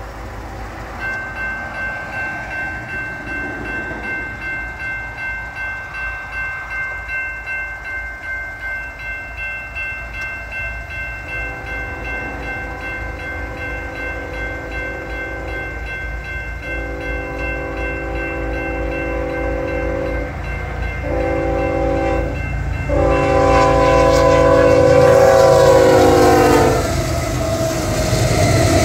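A grade-crossing warning bell ringing, then a Union Pacific freight locomotive's air horn sounding the crossing signal: two long blasts, a short one, and a final long blast that drops in pitch as the locomotive passes. The rumble of the train going by follows.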